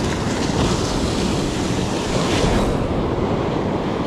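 Ocean surf breaking and washing up the shore, one wash swelling and then easing off about three seconds in, with wind rumbling on the microphone.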